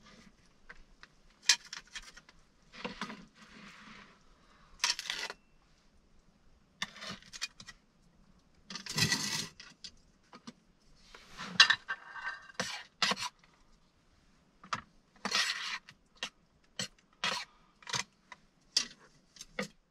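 Metal camping cookware being handled: pans, a lid and utensils clink, knock and scrape at irregular intervals as a frying pan is moved from the stove to the table.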